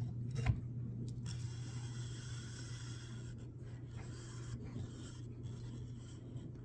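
Metal scraping and rubbing as a rivnut on the nose of a hand rivnut setter is worked into a pre-drilled hole in sheet metal, with a sharp click about half a second in. A steady low hum runs underneath.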